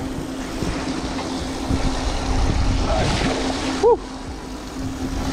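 Water splashing at the side of a small boat as a hooked flounder thrashes at the surface, over wind noise and a steady low hum. About four seconds in there is a brief, loud, pitched cry that rises and falls.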